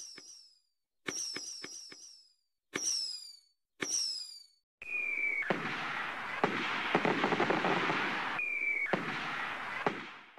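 Fireworks sound effect: three sharp launch pops, each trailing a short falling whistle, then from about five seconds in a dense, continuous crackling of bursting fireworks, with a falling whistle at its start and another near eight seconds.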